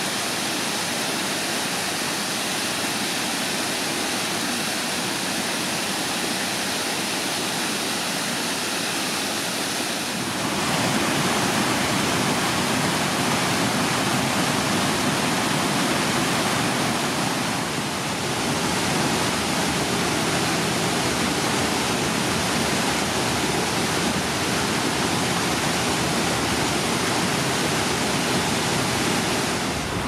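Small waterfall cascading over rock: a steady rush of water that gets louder and fuller about ten seconds in.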